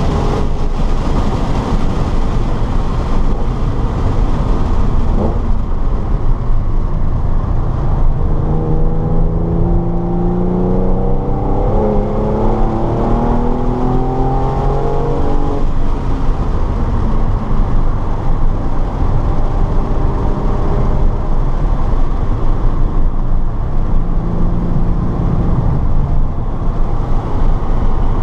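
A car's engine running hard on a track lap, heard from on board over heavy road and wind rumble. Through the middle stretch its pitch drops and climbs several times as the revs change through braking and gear changes.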